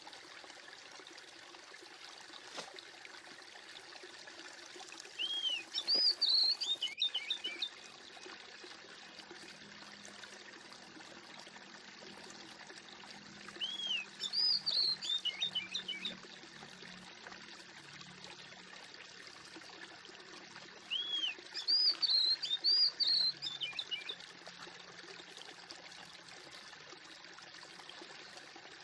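Birds chirping over a steady trickle of running water; the same burst of chirps comes back about every eight seconds.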